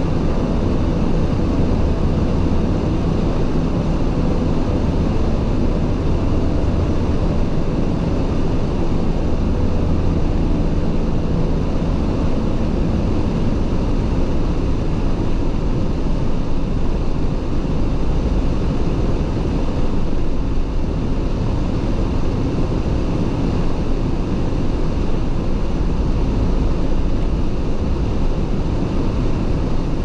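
Van's heater fan blowing at full speed to keep the windscreen clear of frost: a steady rushing noise that does not change, over a low rumble from the van driving.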